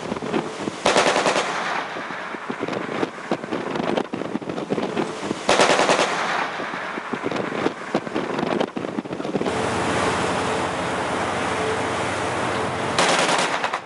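A Japan Coast Guard patrol vessel's 20 mm machine cannon firing three short bursts of rapid shots, each under a second long, a few seconds apart, as warning fire into the hull of a fleeing vessel. Steady wind and sea noise runs underneath.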